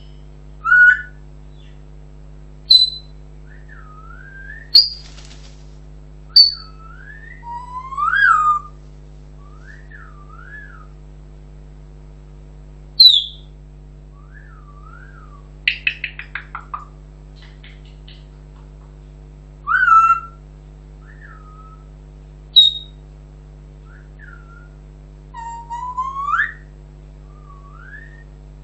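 African grey parrot whistling: short whistled notes that glide up and down, mixed with sharp high chirps, coming every second or two with gaps between. About halfway through there is a quick rattling run of clicks. A steady low hum runs underneath.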